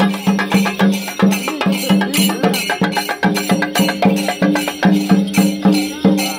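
Kerala temple percussion ensemble playing: drums struck in a quick, steady rhythm, with the brass ilathalam cymbals clashing on the beats.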